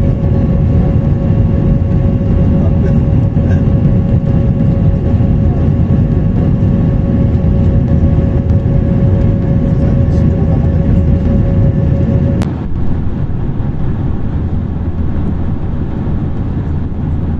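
Airbus A321 jet engines and airflow heard inside the cabin during the climb after take-off: a loud, steady low rumble. A thin steady hum running over it stops suddenly with a click about twelve seconds in, and the cabin noise drops slightly from then on.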